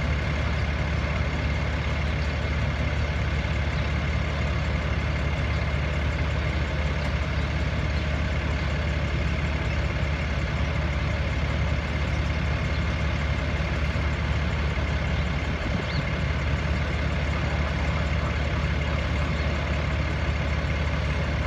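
Engine idling steadily: an even, low rumble with a thin, steady whine above it.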